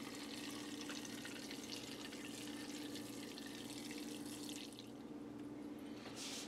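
Faint trickling and dripping of melted butter and oil poured in a thin stream from a saucepan onto chicken and vegetables in a slow cooker, stopping about three-quarters of the way through, over a steady low hum.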